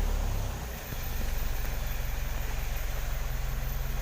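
Diesel pickup truck engine idling steadily, a low even rumble, with a brief dip in level just under a second in.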